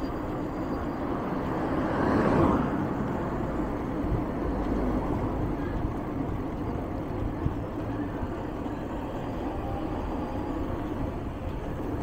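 Steady rush of wind and road noise from an electric bike riding along a street, with a louder swell about two seconds in.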